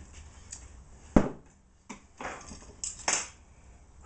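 Kitchenware being handled on a counter: a sharp knock about a second in, then a few lighter knocks and clinks.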